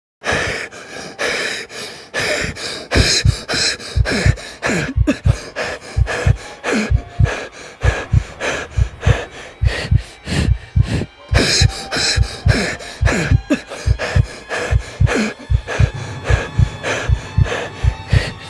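A person breathing fast and hard: rapid, heavy breaths in and out, a few a second, each with a low thump.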